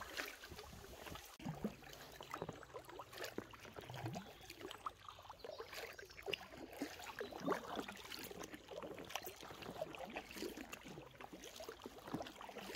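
Paddles dipping into canal water from an inflatable kayak, with water dripping and trickling off the blades: faint, irregular small splashes.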